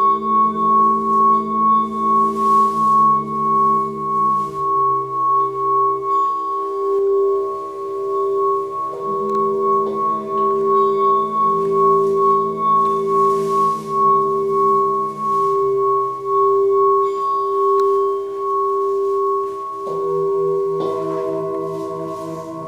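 Several metal singing bowls ringing together in layered steady tones, each with a slow wavering beat in loudness. A bowl is struck again about 9 seconds in and once more near the end, and the lower notes shift in pitch every few seconds.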